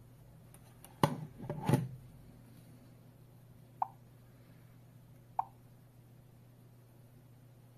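A few loud knocks and rubs of handling about a second in, then two short beeps a second and a half apart from the STANIOT alarm hub's touchscreen, as its menu buttons are tapped.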